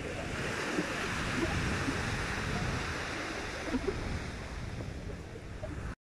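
Small ocean waves breaking and washing up a sandy beach: a steady hiss of surf that swells a little and then eases off.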